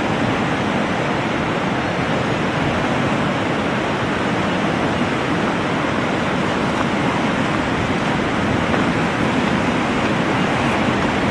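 Steady rushing of a flood-swollen river running in whitewater rapids.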